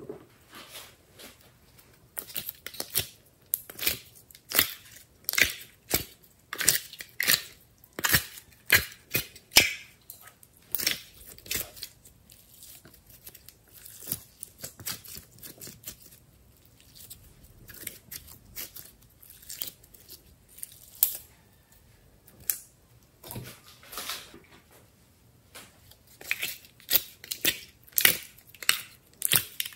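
Hand-worked slime giving irregular sticky crackles and pops as it is stretched, pressed and squeezed. The pops come thickest in the first third and again near the end, when slime is squeezed out of a plastic container.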